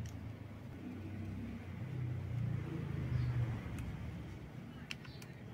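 Low steady background rumble that swells a little in the middle, with a few faint clicks from the camera being handled, one just before the end.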